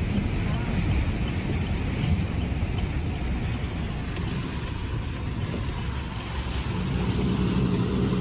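A car driving through shallow floodwater, heard from inside the cabin: a steady low rumble of engine and tyres with water washing under the car, growing a little louder near the end.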